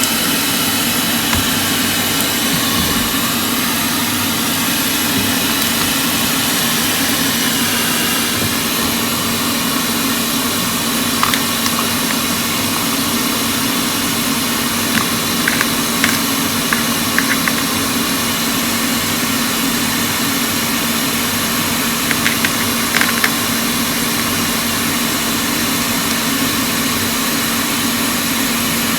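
Hot air rework station blowing steadily, its fan and air stream making a constant hiss with a low hum, while it heats solder on the circuit board. A few faint clicks of small tools against the board come through in the middle and near the end.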